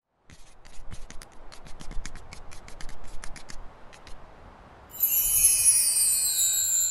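Logo-reveal sound effects: a quick run of scratchy pen-on-paper writing strokes for about four seconds, then, about five seconds in, a bright shimmering chime of several tones sliding down in pitch and ringing out.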